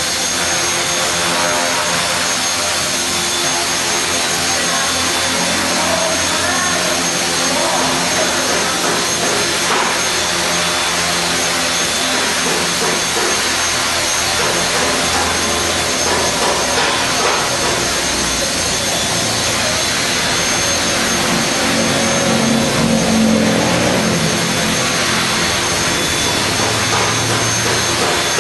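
HK450GT Pro flybarless electric RC helicopter hovering: the brushless motor whines and the main rotor blades whirr steadily, with the pitch shifting now and then as the helicopter is held in a test hover.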